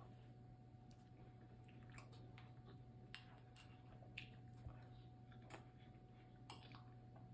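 Very faint eating sounds: soft chewing and scattered small clicks of a metal spoon against a glass bowl, over a low steady hum.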